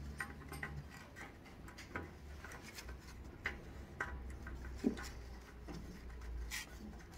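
Plastic oil-fill dipstick being twisted into the threaded fill port on a small engine's aluminium crankcase: faint scattered clicks and rubbing, the sharpest click about five seconds in.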